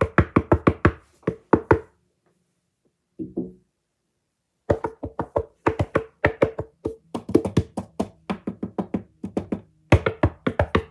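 ASMR knocking on a hard surface: quick runs of sharp knocks, about five a second, with a pause of a couple of seconds partway through.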